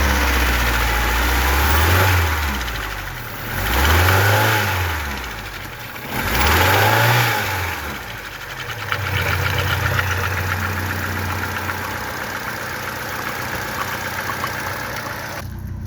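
Fiat Palio 1.2 L four-cylinder petrol engine revved up and let fall back three times in the first eight seconds, then idling steadily, while it is checked for a misfire.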